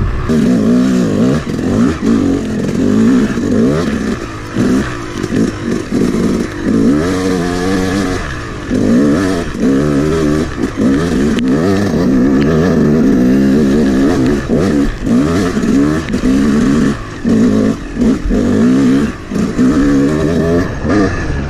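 Yamaha YZ250 two-stroke dirt bike engine, freshly rebuilt top and bottom end, being ridden hard on a trail: it revs up and backs off over and over as the throttle opens and closes every second or two, with short drops between pulls.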